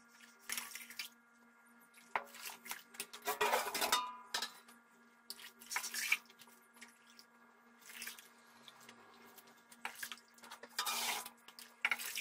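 A metal scoop scrapes and knocks against a stainless brew kettle as thick grain mash is ladled out and poured into a plastic pitcher, in several separate bouts, to draw off mash for a decoction. A faint steady hum sits underneath.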